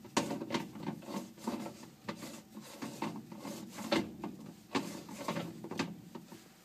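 Irregular plastic clicks and knocks with rubbing as the upper part of a Kenmore 70 Series washer's two-piece agitator is turned by hand on its base, right after it has been refitted.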